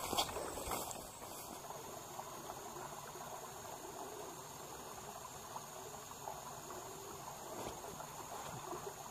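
Faint outdoor ambience: a few soft rustling footsteps through grass in the first second or so, then a low, steady background hiss.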